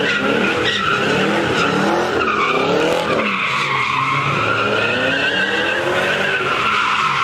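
Car spinning donuts: tires squealing with a wavering pitch while the engine revs up and down without a break.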